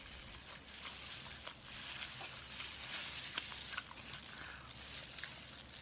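Close-up wet chewing and mouth sounds with many small clicks and smacks, as a cooked whole octopus is bitten and eaten.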